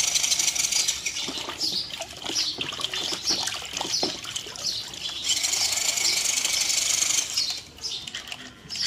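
Water splashing and churning around the spinning wheels of an RC crawler truck held upside down in a tub of water. A steady high hiss stops about a second in and comes back from about five to seven seconds in.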